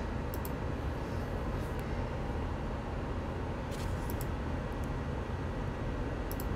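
Laptop touchpad or mouse clicks, a few sharp ones, some in pairs, as a web page's randomize button is clicked over and over, over a steady low rumble of room noise.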